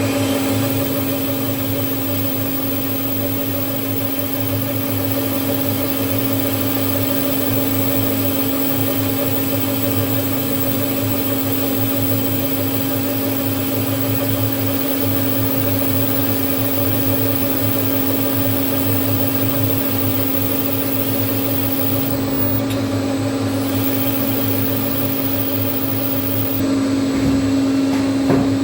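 CNC machine running on a brass part: a steady mechanical hum with a constant pitched tone, growing a little louder near the end.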